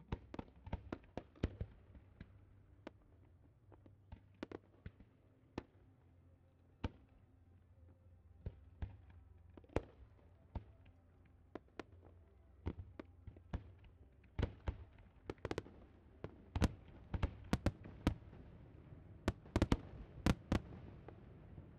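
Fireworks display: a long run of sharp bangs and cracks from bursting shells at irregular intervals, coming thicker and louder over the last several seconds.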